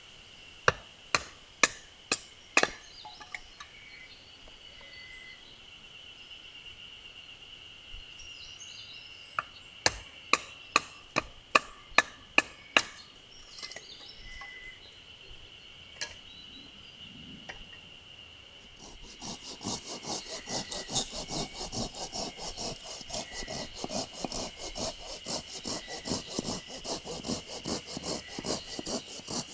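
Firewood being split: sharp wooden knocks, five in the first few seconds and a quick run of about eight around the middle. In the last third a fast, steady scraping rhythm of several strokes a second takes over, with insects droning throughout.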